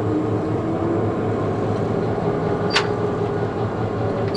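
EMD 645E3B turbocharged V16 diesel of an 81 class locomotive idling, heard from inside its cab as a steady drone. A brief sharp click comes about three seconds in and another at the very end.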